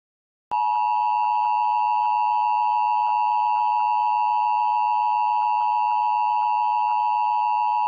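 Emergency Alert System attention signal: a steady electronic alert tone that starts about half a second in and holds unchanged for about eight seconds, warning that an emergency alert or test message follows.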